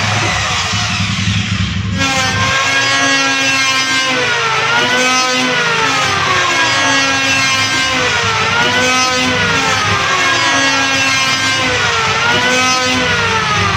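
Electric hand planer running loud, its whining motor pitch sinking and climbing back again about every four seconds. The sound changes abruptly about two seconds in, where the recording is spliced.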